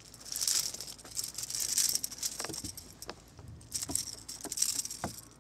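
A hooked bass splashing and thrashing at the surface as it is drawn in by hand, in bursts of splashing mixed with sharp rattling clicks of tackle.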